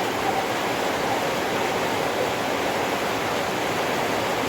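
Heavy rain falling, a steady even wash of noise with no breaks.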